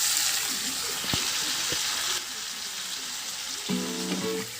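Mango pieces frying in hot oil in a kadai: a steady, dense sizzle that eases slightly about two seconds in, with a few faint clicks. Background music comes in near the end.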